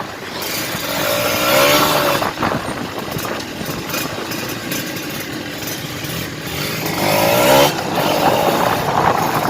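Kawasaki Ninja 150 RR single-cylinder two-stroke engine with an aftermarket exhaust, accelerating hard on the road. Its pitch climbs twice, dropping away between as it shifts up, with wind buffeting the microphone. It pulls through the revs with no bogging and no cutting out.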